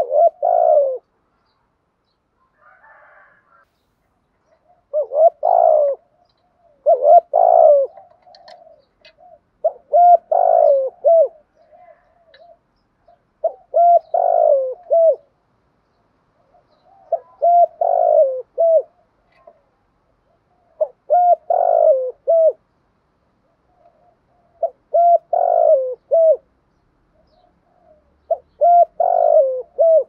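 Spotted dove cooing: a phrase of several low coos repeated about every three and a half seconds, nine phrases in all.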